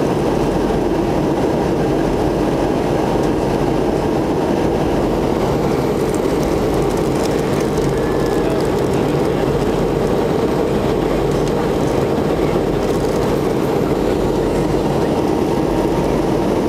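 Steady cabin noise of an MD-88 jetliner in descent, heard inside the cabin: the drone of its tail-mounted Pratt & Whitney JT8D engines blended with the rush of airflow, unchanging throughout, with a faint steady tone.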